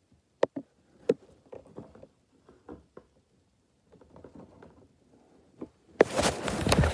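Handling noise from a phone held in the hand: a few sharp taps and clicks in the first second or so, soft scattered rustling, then loud rubbing and scraping against the microphone from about six seconds in as a hand grabs the phone.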